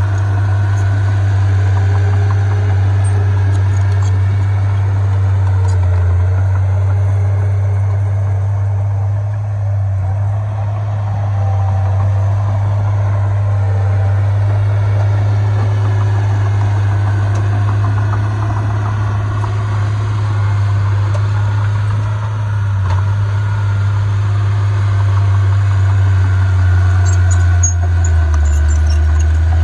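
Heavy diesel engine of earthmoving equipment running steadily with a deep, even drone. A few faint clicks come near the end.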